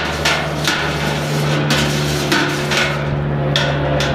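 Long stainless steel spoon clanking against the sides of a stainless steel brew kettle while stirring malt extract into the wort: about eight irregular metallic knocks, with scraping between them.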